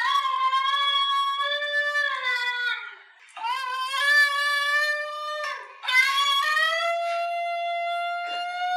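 Basenji yodeling: three long, siren-like howls, the last rising and then holding a steady pitch. It is the vocal call of a barkless dog breed, which yodels instead of barking.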